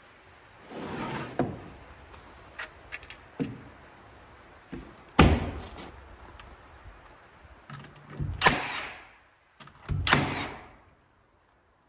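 Milwaukee cordless nailer driving nails through wooden battens into mahogany siding: a few sharp shots, each with a short ring, the loudest about five seconds in and two more near eight and a half and ten seconds. Lighter knocks and taps come in between.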